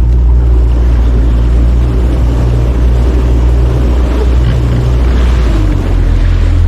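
Boat's outboard motor running underway, a loud steady low drone with rushing noise over it. It starts abruptly, and the engine note shifts slightly about five seconds in.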